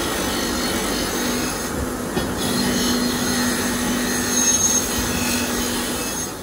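Steel axe head being ground on a running abrasive belt grinder: a steady motor hum under a continuous rasping hiss of steel against the belt.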